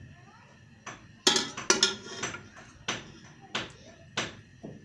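A metal ladle clinking and tapping against the inside of an aluminium pressure cooker: a series of sharp clinks, roughly two a second.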